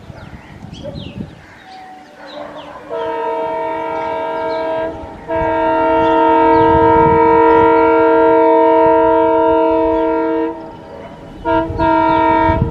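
Horn of an ALCo WDM-3D diesel locomotive sounding three times: a blast of about two seconds, a long blast of about five seconds, then a short blast near the end.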